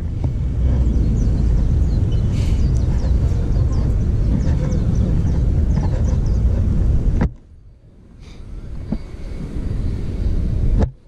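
Wind buffeting the microphone outdoors, a heavy shifting low rumble with a few faint high chirps over it. It drops away suddenly about seven seconds in and comes back just as suddenly near the end.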